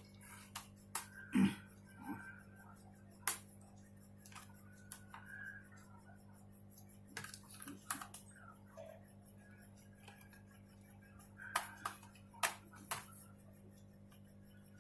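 Scattered sharp clicks and light taps of a laptop's plastic bottom cover being fitted back on and closed up, a few at a time with gaps between.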